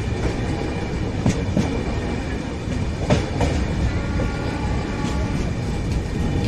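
Coaches of a passenger express train rolling slowly along the track, with a steady rumble and paired clicks about every two seconds as the wheel sets of each bogie cross a rail joint.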